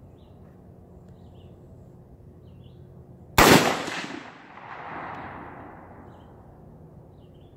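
A single rifle shot, a sharp crack followed about a second and a half later by its echo rolling back and fading over a couple of seconds.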